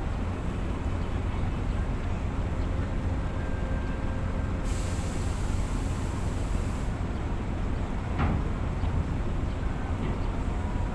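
Heavy diesel truck engines idling in a steady low rumble. About five seconds in, a truck's air brakes hiss for about two seconds. A single sharp knock follows just after eight seconds.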